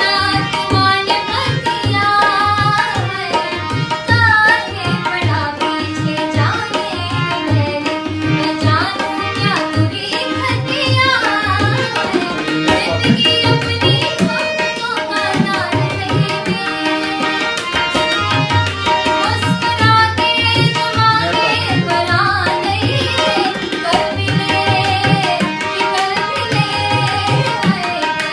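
Tabla drumming in Indian classical style: quick, rhythmic strokes with the deep bass drum repeating under a melody line.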